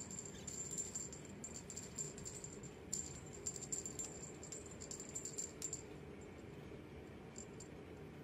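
A small bell on a cat wand toy jingling in repeated quick shakes, stopping about six seconds in.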